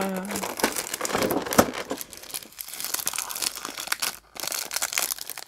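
Plastic packaging crinkling and crackling as a film-wrapped hand punch is pulled out of a clear plastic tray insert, with a sharp snap about one and a half seconds in.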